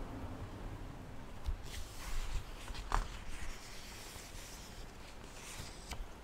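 Paperback book pages being handled and turned close to the microphone: soft paper rustles and a few light taps, the clearest about three seconds in.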